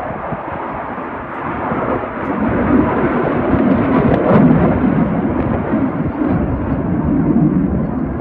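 Jet engine noise of a JAS 39 Gripen fighter flying over the airfield: a deep rumble that swells about two seconds in, is loudest around four seconds, and stays loud to the end.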